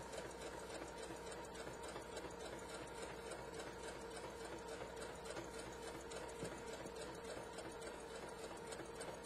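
Home sewing machine running at a steady speed, its motor humming and a 2 mm twin needle ticking rapidly as it stitches a row of pintucks through lightweight fabric under a pintuck foot.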